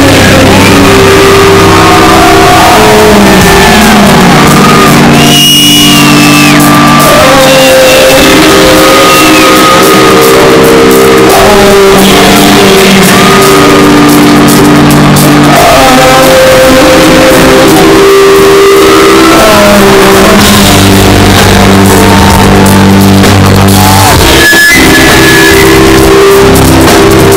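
Alternative metal band playing live through a festival PA: electric guitar and a male singer singing and shouting over it. The recording sits at full scale throughout and overloads.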